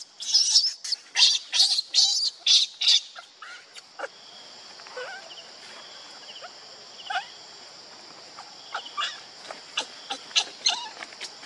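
Infant pig-tailed macaque crying in a rapid run of shrill squeals, about two a second, for the first three seconds, then giving scattered softer squeaks that fall in pitch.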